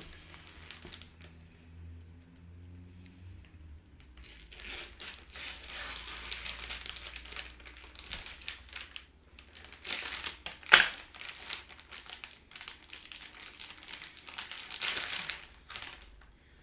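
Plastic bag of shredded cheddar cheese crinkling and crackling in irregular bursts as it is handled, with one sharp, loud crackle about eleven seconds in.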